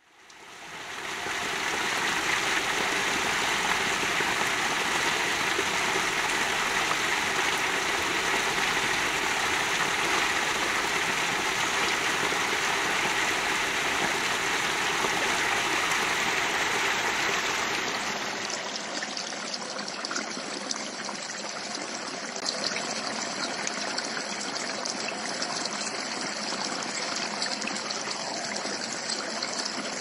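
Steady rush of water from garden waterfalls, fading in at the start. About two-thirds of the way through it changes to a lighter sound: water spilling from a stone fountain and splashing onto gravel.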